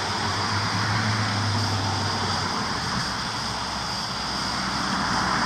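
Steady outdoor background noise, with a low hum that stops about halfway through.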